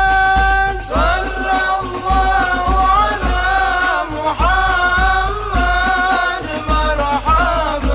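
Background music: a melody in long, wavering held notes over a steady low beat.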